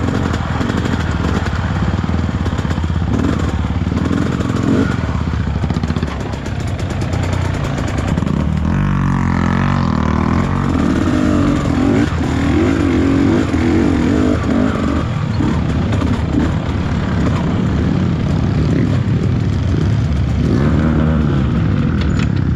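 Trail motorcycle engine running under load and being revved, its note rising and falling as the throttle opens and closes.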